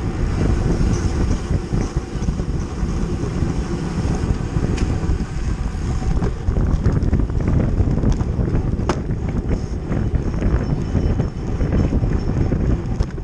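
Heavy wind buffeting the microphone, a steady low rumble, with a couple of sharp clicks about five and nine seconds in.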